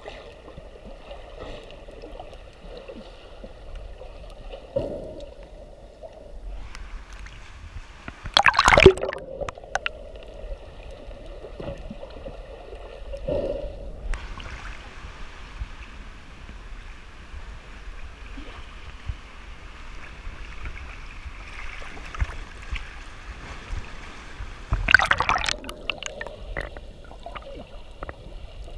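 Muffled water sound recorded underwater by a submerged camera: steady swishing and gurgling, with two brief louder splashy bursts, about eight seconds in and again near the end.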